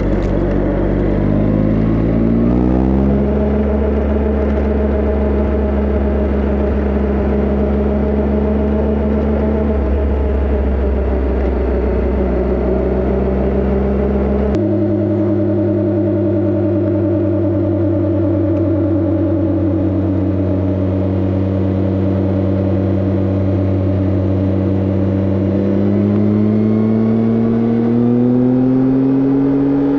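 Triumph Tiger Explorer motorcycle heard from the rider's seat on tarmac: the engine and the hum of knobby Pirelli Scorpion Rally tyres make one steady drone. The pitch climbs as the bike speeds up, changes abruptly to a different tone about halfway through, and climbs again near the end.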